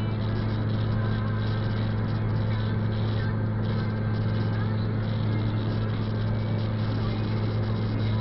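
Steady road noise heard from inside a car driving on a wet highway: a constant low engine hum over even tyre hiss from the wet road.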